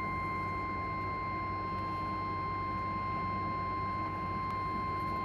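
NOAA Weather Radio 1050 Hz warning alarm tone: one steady, unbroken high tone over a low hum and hiss, the alert that an urgent weather warning message follows.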